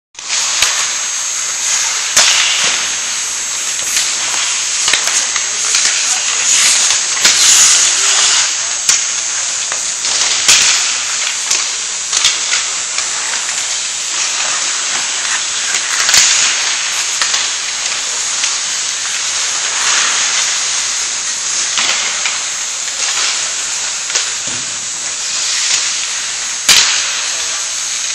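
Ice hockey play on an indoor rink: skate blades scraping and carving the ice over a steady high hiss, with sharp clacks of sticks and puck scattered throughout and one loud clack near the end.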